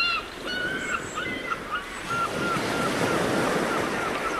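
Ocean surf washing, swelling in the middle, while a dog whines in a quick run of short, high-pitched whimpers, about three a second.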